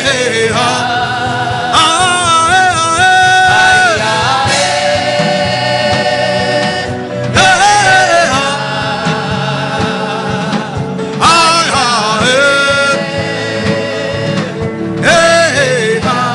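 Gospel worship singing, with a lead voice holding and bending long notes over a steady accompaniment, in phrases a few seconds long.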